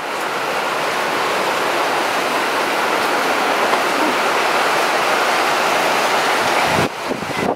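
Heavy rain pouring down in a steady, loud rushing hiss, which drops away abruptly near the end.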